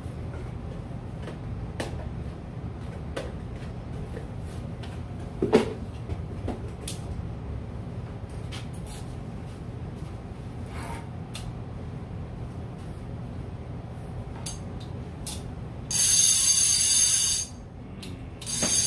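A new conventional fishing reel's clicker ratcheting in a fast, high-pitched buzz as its spool is spun, for about a second and a half near the end and again just before the end. Before that, light clicks and taps of the reel and its packaging being handled, over a steady low hum.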